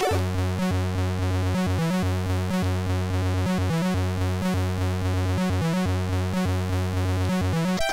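Commodore 64 chiptune played by its MOS 6581 SID sound chip: a repeating low bass figure in short even phrases with thin higher tones above it. Near the end the bass figure stops and a busier, higher melody takes over.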